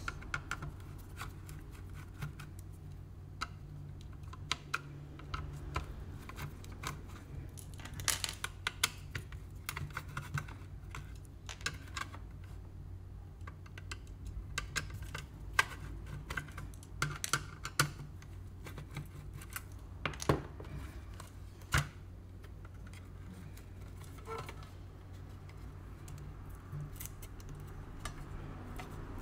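Screwdriver taking the small screws out of the back of a round LED ceiling panel light: scattered light clicks and scrapes of the tool, screws and plastic housing, with a few sharper clicks through the middle stretch. A steady low hum runs underneath.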